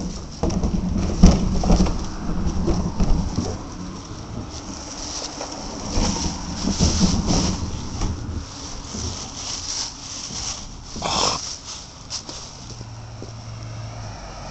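Rumbling handling noise and rustling from a camcorder being carried low to the ground, with scattered knocks and bumps, loudest in the first couple of seconds and again around the middle.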